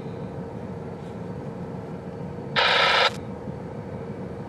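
A railroad scanner radio breaks squelch once, just past the middle, with a half-second burst of static and no voice, over a low steady rumble.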